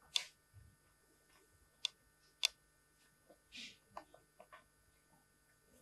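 Faint, sparse sharp clicks and taps with a brief scrape, from a fingertip drawing through a wet dark layer on the floor. Three clearer clicks come in the first two and a half seconds, then a short scrape and a few smaller ticks.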